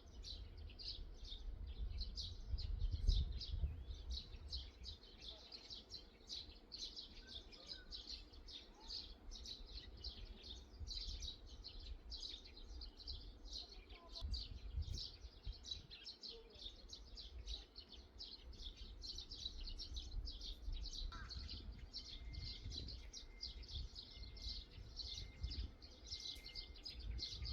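Birds chirping continuously in quick, high notes, with a low wind rumble on the microphone that swells now and then.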